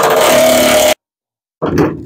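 Cordless impact driver hammering at full speed, backing a bolt out of an old seat bracket in the floor. It cuts off about a second in.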